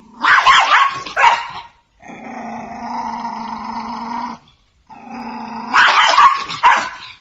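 A dog vocalising: two loud short outbursts, then a long, steady held note, and after a brief pause the same sequence again.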